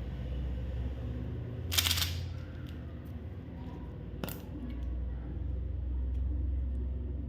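Packaging being handled during a chocolate unboxing: a short crinkling rustle about two seconds in and a single sharp click a little after four seconds, over a steady low rumble.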